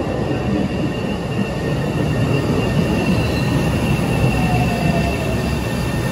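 MBTA Orange Line subway train pulling into an underground station and braking to a stop: a steady rumble of wheels on rail with a high wheel squeal, and a falling whine about four to five seconds in as it slows.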